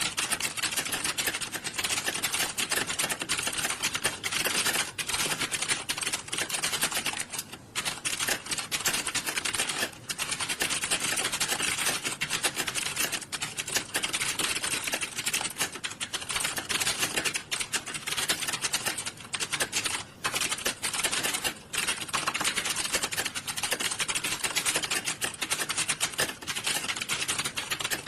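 Many computer keyboards being typed on at once, a dense, continuous clatter of key clicks with a few brief lulls, as in a hall full of candidates sitting a typing test.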